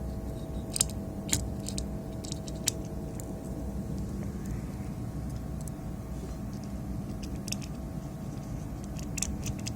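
Light clicks and taps of a small electronic component being handled and fitted into a power supply circuit board, over a steady low hum.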